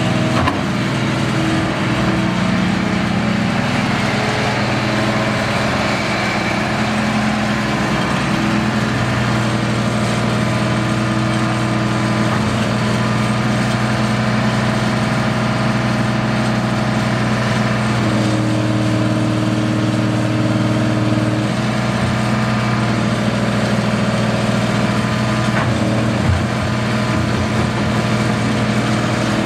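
John Deere 690B excavator's six-cylinder John Deere 6404T diesel engine running steadily while the machine works its boom, stick and bucket and swings. The engine note holds, with small shifts in pitch now and then.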